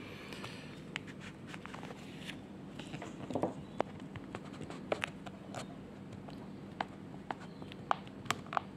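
Light plastic clicks and taps of a Brother TN255 toner cartridge being handled as its developer roller is lifted at the end and worked sideways to slide it out, over a faint steady hum.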